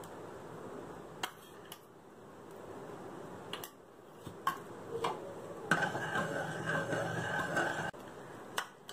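Metal spoon stirring a thick batter in an aluminium kadai: a few light clicks of metal on the pan, then a couple of seconds of steady scraping and clinking about six seconds in.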